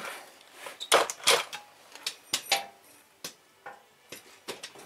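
Metal hand tools and engine parts clinking and tapping: about eight separate light clicks and knocks, a couple of them with a brief metallic ring.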